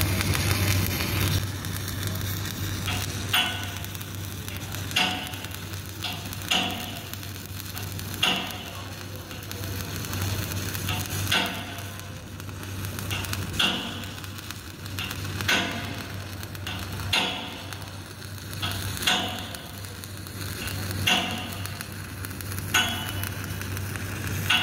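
Stick (SMAW) welding arc burning a wet electrode: a continuous crackle and sizzle over a steady low hum, swelling into a brief louder surge about every couple of seconds.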